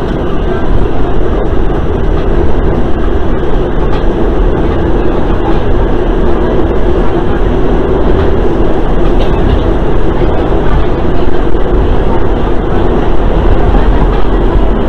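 Subway train running, heard from inside the car: a loud, steady rumble and rattle.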